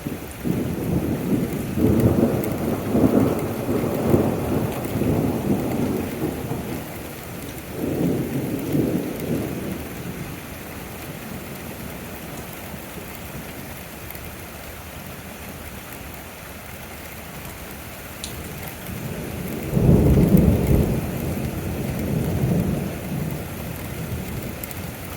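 Thunder rumbling over steady rain: a long roll in the first several seconds, a shorter one around eight seconds in, and a louder crack-and-rumble about twenty seconds in that fades slowly.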